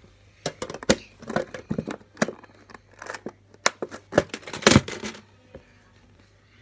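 Handling noise as squishy toys are put away into a container: an irregular run of crinkling rustles and sharp clicks and knocks that stops about five seconds in.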